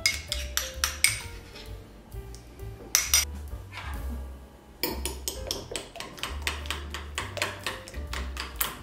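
Metal spoon scraping and clinking against a small glass bowl, then from about five seconds in a fork beating an egg into a creamy mixture in a ceramic plate, a quick run of clinks against the plate. Background music with a steady bass plays underneath.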